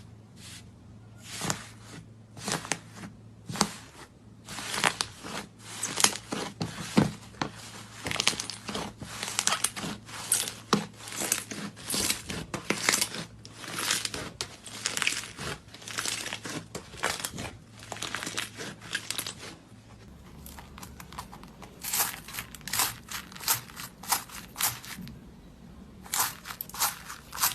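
Slime being squeezed and pressed by hand, giving a steady run of sharp crackling pops and crunches, several a second.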